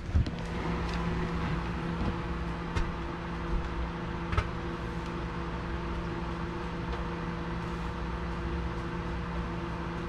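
Samsung microwave oven running on high with a steady hum, in the last seconds of its cook cycle. A couple of faint clicks come through about three and four and a half seconds in.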